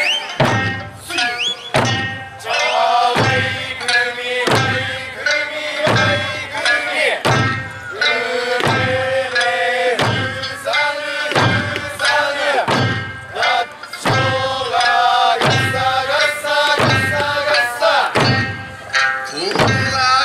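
Eisa drumming: large Okinawan barrel drums (ōdaiko) struck together in a steady beat, roughly once a second, over a sung Okinawan folk song with plucked-string accompaniment.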